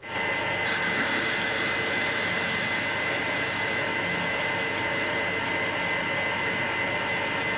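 Metal lathe running and turning a cylinder end plate for a model traction engine, the cutting tool taking a steady cut. It is a steady mechanical noise with a high, even whine from the drive, and it comes in abruptly.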